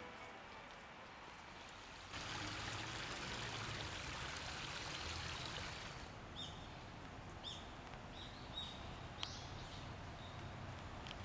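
Steady hiss of rain falling on a garden pond, louder from about two seconds in. In the second half a bird gives short high chirps about once a second, and a sharp click sounds late on.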